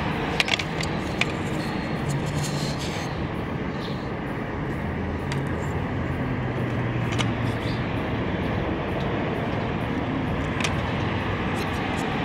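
Steady outdoor background noise from vehicle traffic, with a low hum, and a few light clicks in the first second and a couple more later.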